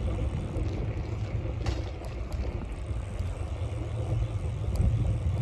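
Wind buffeting the microphone of a camera carried on a moving bicycle: a steady low rumble.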